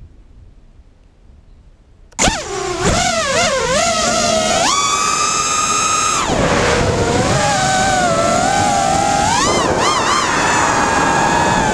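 FPV racing quadcopter's Cobra 2204 2300kv brushless motors spinning 5x4x3 tri-blade props: after about two seconds of quiet they spin up suddenly for takeoff, the whine wobbling in pitch, then held high for about a second and a half. It then drops to a steadier whine and rises and wobbles again near the end.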